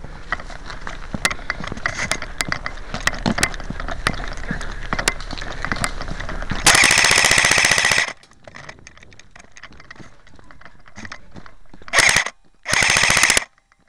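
Airsoft gun firing on full auto: one loud burst of about a second and a half some seven seconds in, then two short bursts near the end. Before the first burst, scattered clicks and knocks over a rustle that grows louder.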